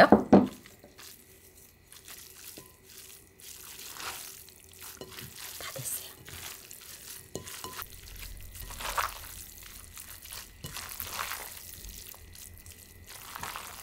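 Cold noodles in a sticky gochujang dressing being tossed and mixed by hand in a bowl: soft, irregular wet rustling with a few light clicks.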